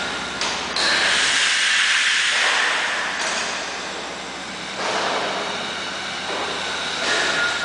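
Worthington Simpson steam pumping engine turning over on compressed air instead of steam: a mechanical run with a hiss of air that swells and fades in slow, regular surges.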